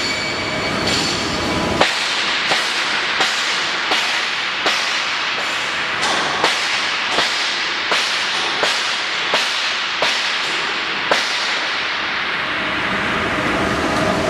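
Fish meal mixer running: a steady mechanical rush with a sharp click about every 0.7 seconds, the clicks stopping about three-quarters of the way through and leaving a steadier hum.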